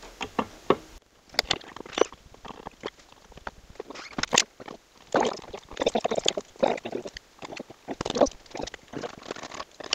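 Irregular small clicks, taps and knocks of hands handling the parts of a wooden Printrbot 3D printer, with one sharper knock a little past the middle.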